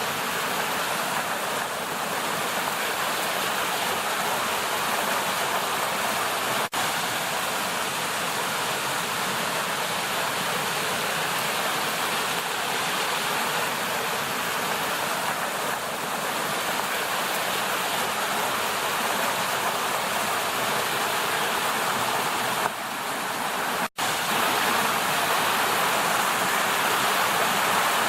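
Creek water rushing over rocks and small cascades, a steady rush, broken by a momentary gap about 7 seconds in and again near 24 seconds.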